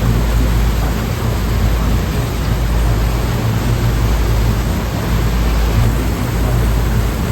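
Sea waves and surf making a steady, unbroken wash of noise with a heavy low rumble.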